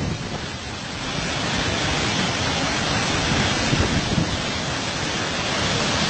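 Mountain stream rushing in a steep white-water cascade over rocks: a steady, loud rush of water.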